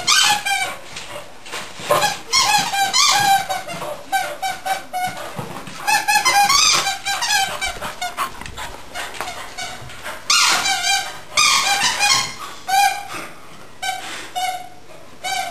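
Squeaky dog toy squeaking in quick runs of short squeaks as a beagle chews and squeezes it, with a few brief pauses between runs.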